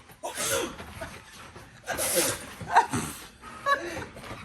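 A puppy giving several short yips and whines, its protest at its owner's sneezing.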